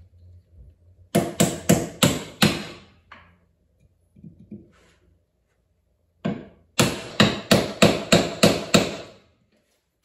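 Hammer striking the top end of a new wooden hatchet handle while the hatchet head rests on a wooden stump, driving the handle into the head's eye. There are two runs of quick blows, about three a second: the first starts about a second in, and the second, longer run comes in the second half.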